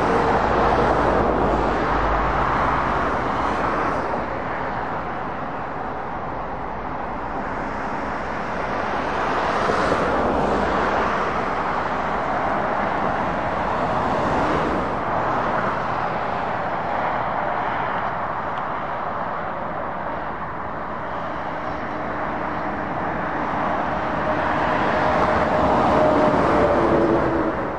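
Motorway traffic: tyre and engine noise of heavy lorries and cars passing, swelling and fading as each vehicle goes by, several times over. The loudest pass comes near the end, with a lorry engine's drone audible under the tyre noise.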